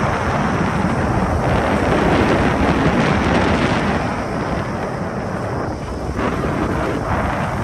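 Wind buffeting the microphone of a moving bike, a steady low rumble that eases a little for a moment late on.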